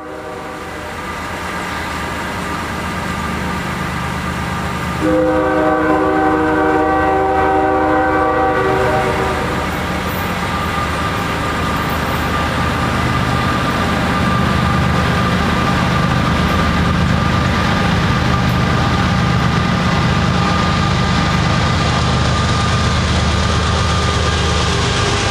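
Three GE diesel locomotives of a CSX freight train pulling away from a stop under heavy throttle, their engine drone growing louder as they approach. About five seconds in, the lead locomotive sounds one long horn blast of about three and a half seconds.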